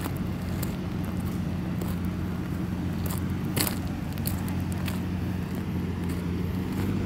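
Heavy diesel engine of road-paving machinery running steadily at a low, even pitch, with scattered short crackling clicks over it; the sharpest click comes about three and a half seconds in.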